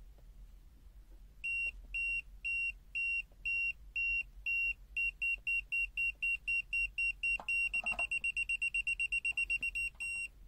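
BSIDE X1 multimeter's non-contact voltage detector beeping in normal NCV mode. It gives a high single-tone beep, about two a second at first, quickening to a rapid run a little past the middle, then slowing again near the end. The beep rate rises as the detector senses a stronger AC voltage field.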